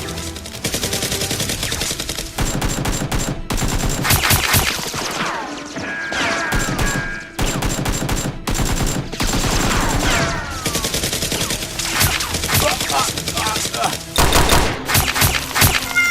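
Rapid automatic gunfire, the gun sound effects of a Nerf blaster firefight, in several long bursts with short breaks between them.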